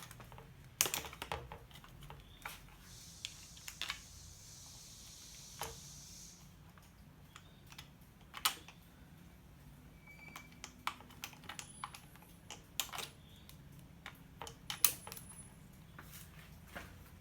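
Irregular small clicks and knocks of metal mounting hardware, clamps and bolts, being handled and fitted by hand, with a soft hiss from about three to six seconds in.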